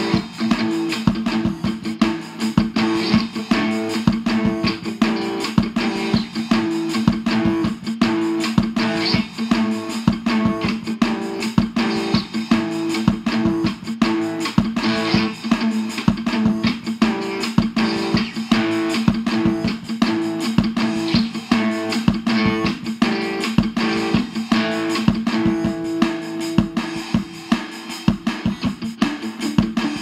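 Instrumental guitar music: fast, steady picked notes over held low notes.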